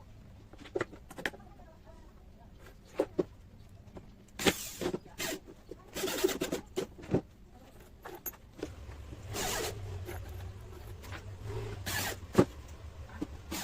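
Scattered knocks and clicks with short scraping swishes, the sounds of work being handled, and a low hum setting in about halfway through.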